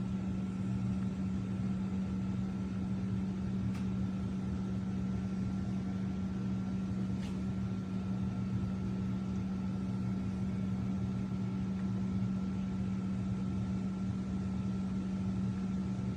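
A steady machine hum with a faint high whine above it, starting abruptly and cutting off abruptly, unchanging throughout.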